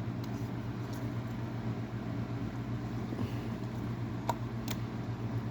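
Steady low hum, with two sharp clicks a little over four seconds in as the knobs of a Westclox Big Ben S10-D electric alarm clock are handled.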